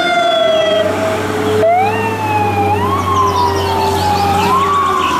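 Fire engine siren wailing in slow sweeps, its pitch climbing and then sliding down again several times, over a steady low drone.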